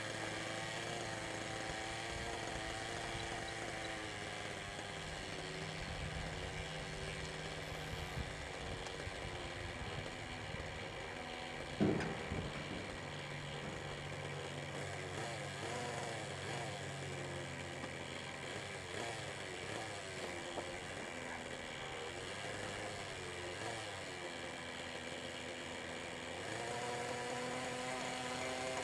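Small nitro glow engine of a Caliber 30 RC helicopter running at low throttle with the rotor turning, its pitch wandering up and down. A single sharp knock about twelve seconds in, and the engine speed rises near the end.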